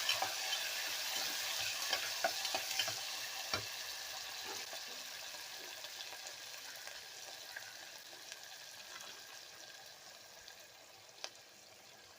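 Sliced onions and green chillies sizzling in ghee and oil in a small pressure cooker as a spoon stirs them, with a few clicks of the spoon against the metal pot. The sizzle fades steadily toward the end.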